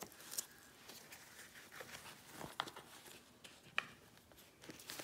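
Faint rustling of gaiter fabric being handled on a hiking shoe, with a few light clicks as the gaiter's front hook is worked into place.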